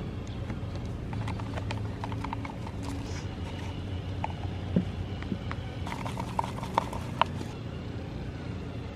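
Scattered light clicks and knocks of hand-mixing epoxy: dispenser pumps pressed and a mixing stick tapping and scraping in a plastic cup, with a few sharper knocks between about five and seven seconds in. A steady low rumble runs underneath.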